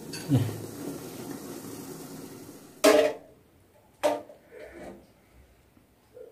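Faint steady hiss, then two sharp clanks of metal cookware, about three and four seconds in, with a few lighter knocks after: a ladle and lid against aluminium cooking pots.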